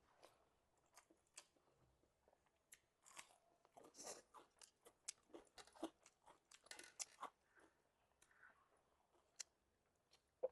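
Faint, close-miked eating sounds: irregular crunches and chewing clicks, clustered most thickly in the middle.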